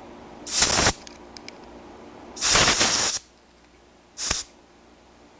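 Compressed-air blow gun hissing in three bursts, the last one short, as its nozzle is held against a small model steam engine to test-run it on air.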